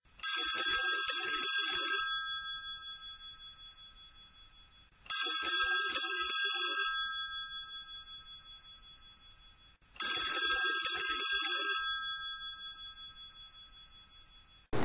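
Telephone ringing three times, about five seconds apart: each ring lasts about two seconds and then fades out slowly.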